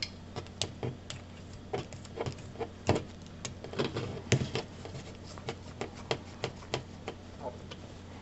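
Irregular light clicks and taps of small metal coax connectors and adapters being handled and threaded together, with a louder knock about three seconds in and another after four seconds. A low steady hum runs underneath.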